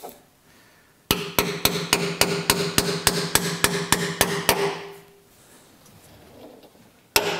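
Hammer tapping a lathe's cast-iron end bracket onto the ends of its lead screw and feed rods to seat it: a quick run of about fourteen ringing blows, roughly four a second, starting about a second in, then two more blows at the very end.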